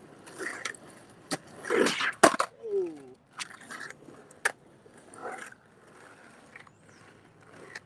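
Freestyle skateboard being ridden through footwork tricks: the wheels roll on rough pavement and the board clacks sharply against the ground several times. A short falling-pitch call sounds about three seconds in.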